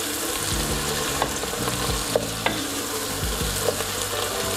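Onion mixture frying in olive oil in a pot with a steady sizzle while a wooden spoon stirs it, with a few light clicks of the spoon against the pot.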